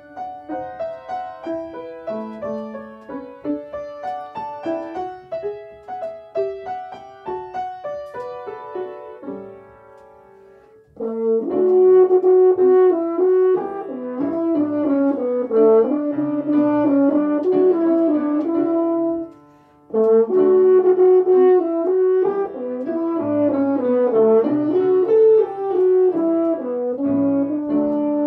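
Piano introduction of short, separate notes and chords, then a French horn enters about eleven seconds in with a slow, sustained melody over the piano accompaniment. The horn breaks off briefly for breath a little past two-thirds of the way through, then plays on.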